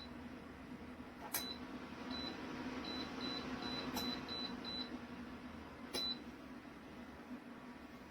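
Lasko Ellipse ceramic tower heater's control panel giving short high beeps as its settings are stepped through, about ten in all, with a quick run of them in the middle. Three sharp clicks come with some of the beeps, and the heater's fan runs steadily underneath.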